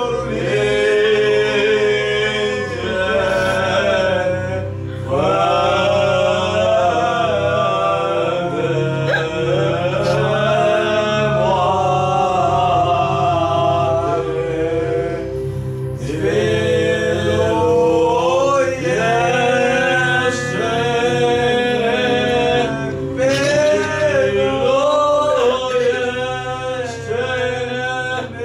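Male voices singing a slow, wavering chant for a mock funeral, over a low steady hum, with short breaks about five seconds in and about halfway through.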